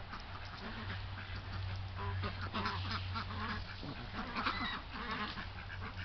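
Backyard flock of ducks and turkeys calling: scattered short quacks and chattering calls, with a low steady hum underneath.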